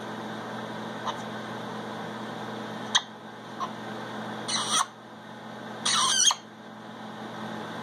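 A parrot gives two short, harsh squawks, about four and a half and six seconds in, with a few faint clicks before them. A steady low hum runs underneath.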